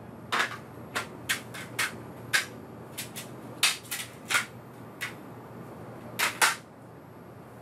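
Someone rummaging through a shelf of plastic DVD cases: an irregular string of about fourteen sharp clicks and clacks, with a louder close pair about six seconds in.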